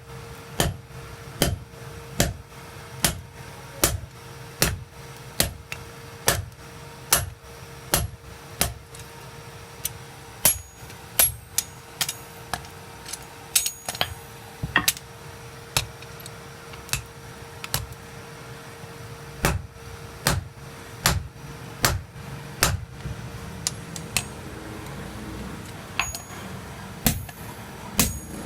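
Repeated hammer blows, evenly spaced about one every 0.8 s for the first ten seconds, then in a looser, irregular rhythm, over a steady low hum.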